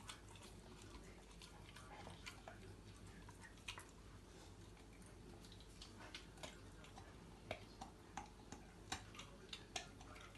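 Rottweiler puppy chewing raw food from a person's hands: faint, scattered crunching clicks that come more often in the second half.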